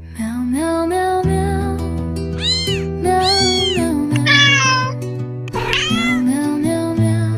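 Several cat meows, high and arching, one with a wavering middle, over background music with held bass notes.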